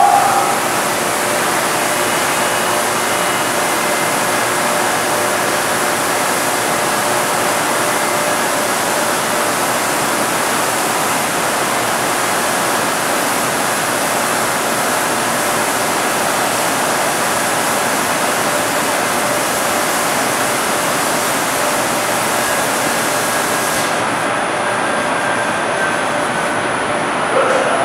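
Automated gantry spray machine working in a spray booth: a loud, steady rushing hiss of spray and moving air, with a brief whine that rises and falls near the end.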